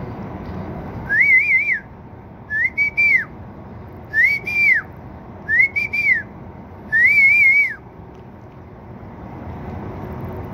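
Five short whistled notes, each about three-quarters of a second long, rising, wavering and then falling, spaced about a second and a half apart.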